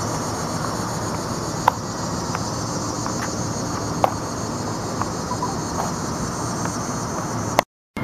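Steady outdoor street ambience: an even background hiss and hum, with a few sharp clicks. The sound cuts out for a moment just before the end.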